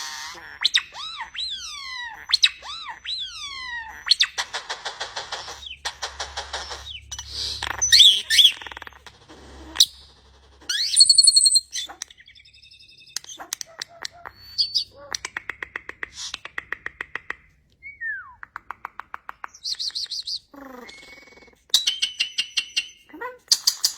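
A bird calling in a long, varied sequence of sweeping whistles, fast pulsed trills and sharp high chirps, with short pauses between phrases.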